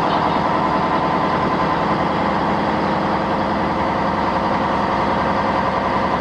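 Jelcz 120M city bus's diesel engine running steadily as the bus drives along a wet road, heard from inside the passenger cabin, with a hiss of tyres on the wet surface.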